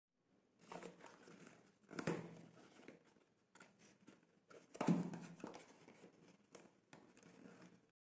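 Hands opening a small cardboard retail box, the flap and contents rustling and scraping in short, irregular handling noises. The noises are louder about two seconds in and again around five seconds.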